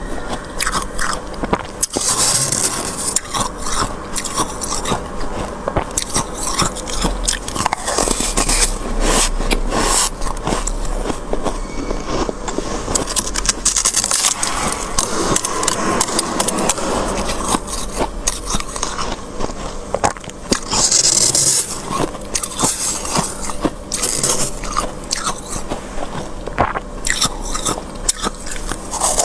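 Thick freezer frost being scraped and crunched: a dense, continuous run of crackling, gritty scrapes with many sharp clicks.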